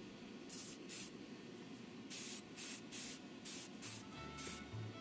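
Paint sprayed onto model parts in short, unevenly spaced hissing bursts, about nine in all. Faint background music comes in near the end.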